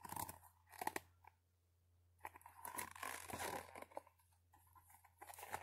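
Paper pages of a picture book rustling and crinkling as the book is handled and a page is turned, in several short, faint spells.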